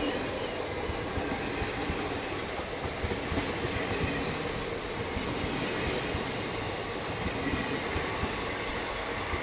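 Passenger coaches of an express train passing through a station at speed: a steady rolling rumble and rattle of wheels on rail, with irregular knocks over the rail joints. A brief high-pitched burst comes about five seconds in.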